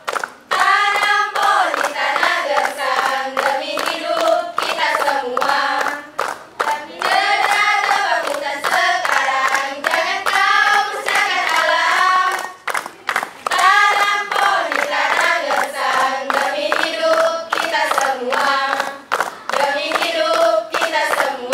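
A group of teenage girls singing a song together in unison while clapping their hands in time.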